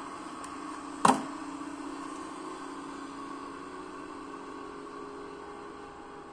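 Steady low hum with a faint hiss, like room or mains hum, broken about a second in by one sharp click.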